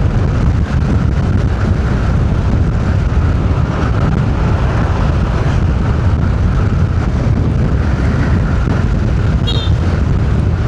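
Strong wind buffeting the microphone of a moving car: a steady, dense low rumble of wind mixed with road noise. A brief high chirp comes about nine and a half seconds in.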